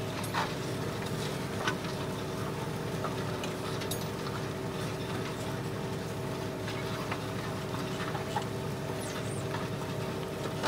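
Tractor engine running steadily under load, heard from inside the cab, as it pulls a reversible plough through the soil; a steady hum with a few light clicks.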